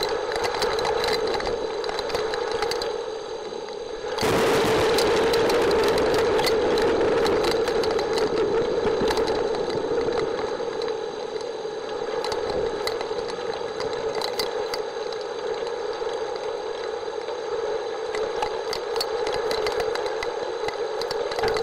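Heavy rain falling steadily, dense with sharp ticks of drops striking close by, over a steady low drone. About four seconds in the downpour swells suddenly louder, then slowly eases.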